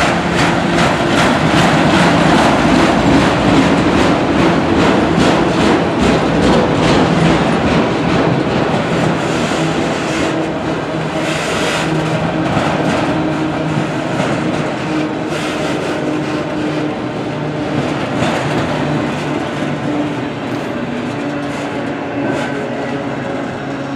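Enclosed autorack freight cars rolling past: steel wheels clatter over the rail joints in quick, repeated clicks over a steady rumble. The sound gradually eases toward the end as the train draws away.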